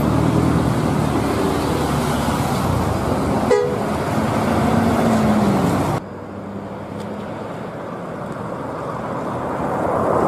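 Intercity bus engines running in traffic, with a brief horn toot about three and a half seconds in. After a sudden change about six seconds in, a coach approaches and its engine noise grows louder.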